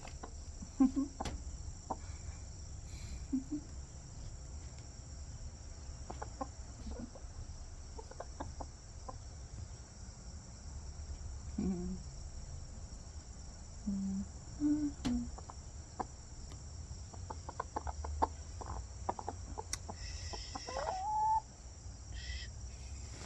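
Pet hens making soft, low clucks every few seconds, with one rising call about twenty seconds in.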